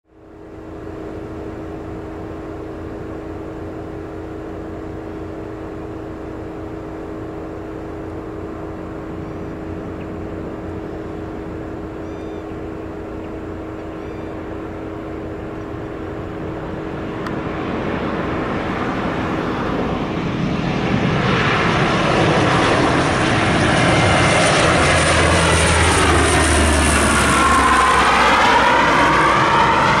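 The four Allison T56 turboprop engines of a Lockheed P-3C Orion on landing approach: a steady propeller drone that grows louder from about halfway through. As the aircraft passes close overhead near the end, the drone slides down in pitch.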